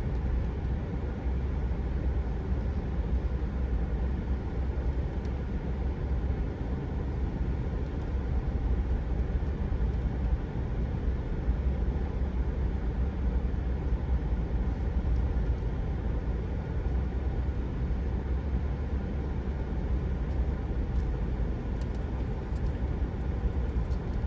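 Steady low rumble of a vehicle's engine and tyres, heard from inside the cab while driving.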